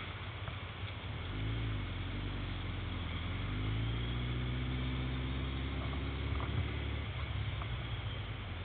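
Yamaha XJR motorcycle's inline-four engine pulling away from slow traffic. The engine note climbs about a second in, rising and levelling off a few times through the gears, then eases near the end, over a steady rush of wind and road noise on the helmet-mounted microphone.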